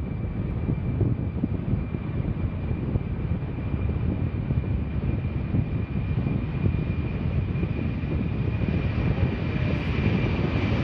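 Lockheed C-5 Galaxy's four turbofan engines on the takeoff roll: a steady, heavy rumble of jet noise with a thin, steady high whine above it, swelling slightly near the end.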